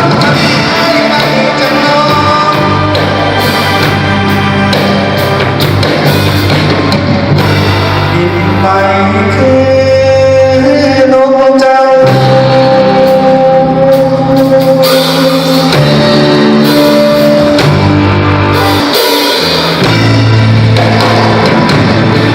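A band playing rock music with a singer, loud throughout, with a long held note about halfway through.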